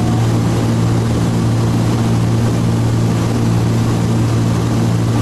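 Steady drone of a Cessna T303 Crusader's twin turbocharged six-cylinder engines and propellers at cruise power, heard inside the cabin: a strong, even low hum under a constant airflow hiss.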